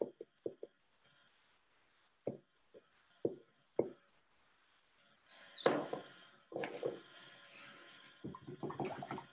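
Pastel tapping and dabbing on paper over a table, a handful of short knocks in the first four seconds. From about halfway, a few seconds of irregular rustling and scraping as the paper is handled and shifted.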